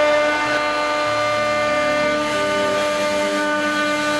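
6090 CNC router spindle running with a steady, many-toned whine while its round-nosed bit carves a pine board. Lower motor tones step to new pitches in the middle as the machine's axes change moves.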